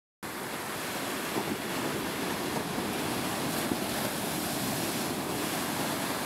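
Ocean surf: waves breaking and washing in a steady rush of noise, which cuts in abruptly just after the start.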